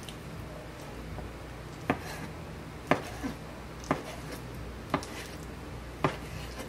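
Stainless steel chef knife chopping raw chicken breast into chunks on a cutting board: five sharp knocks of the blade striking the board, about one a second.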